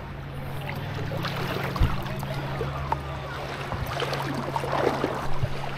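Double-bladed paddle strokes splashing in shallow lake water from an inflatable paddleboard, with water lapping against the board. A single thump comes about two seconds in, and a low steady hum runs underneath.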